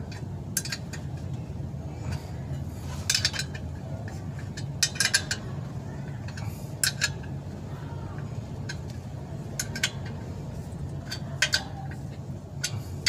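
Sharp metallic clinks of a wrench on the bolts of a clutch pressure plate, a few clicks at a time every second or two, as the bolts are tightened evenly in turn.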